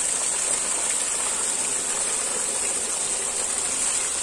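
Steady rushing of water spilling over the stone lip of a small brick tank and running down the brick wall in thin streams.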